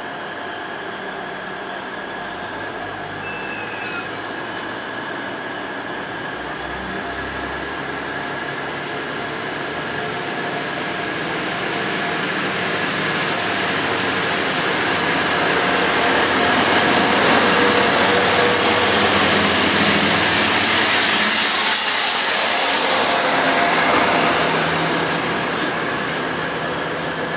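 Class 180 diesel-hydraulic multiple unit pulling away under power: its underfloor Cummins diesel engines work hard, with a high whine that rises in pitch a few seconds in. The sound grows louder as the carriages pass close by, is loudest about two-thirds through, then eases slightly.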